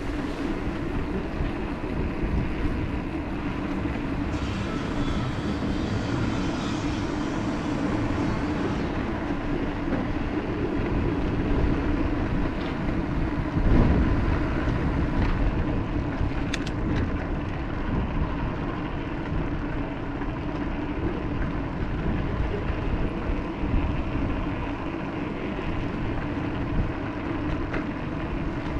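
Ride noise from an e-bike: wind buffeting the camera microphone and tyres rolling over the path, a steady low rumble with one louder bump about 14 seconds in.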